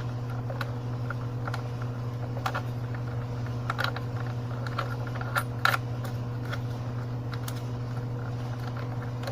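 A steady low hum with scattered light clicks and taps, a few louder ones about two and a half to six seconds in.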